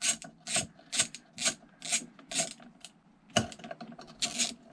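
Hand ratchet clicking in rhythmic strokes, about two a second, backing out the damper bolt at the bottom of an upside-down motorcycle fork leg. A single sharp knock comes about three and a half seconds in.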